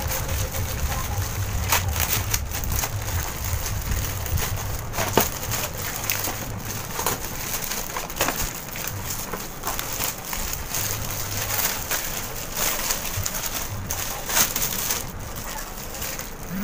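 Cellophane gift wrap crinkling and rustling in irregular crackles as it is pulled and torn off a gift tray.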